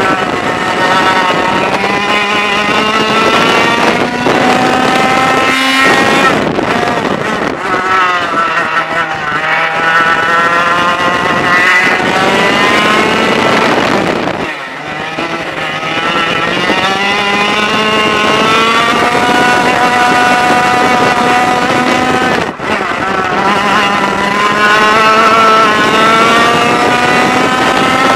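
Onboard sound of a 100cc two-stroke racing kart engine at full throttle. Its pitch climbs along the straights and falls back as the driver lifts off for corners, with a deep lift about fourteen seconds in and a brief cut about twenty-two seconds in.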